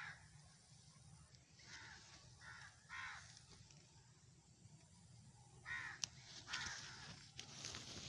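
Crows cawing faintly, several short caws spaced a second or so apart, in two groups with a lull between.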